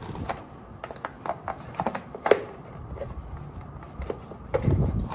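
Scattered light clicks and knocks of a flexible motorcycle starter cover being handled and worked into place, with one sharper click a little after two seconds and a dull low thump near the end.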